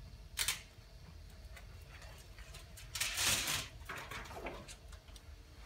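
A cloth being wiped over a smooth, glossy table top: a few rubbing swishes, a short one near the start and a longer one about three seconds in, over a low steady hum.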